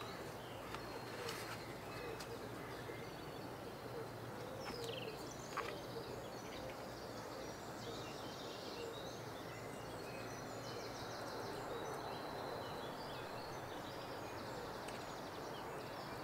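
Faint steady background noise, with a few small clicks and rustles of hands handling wiring and plastic parts.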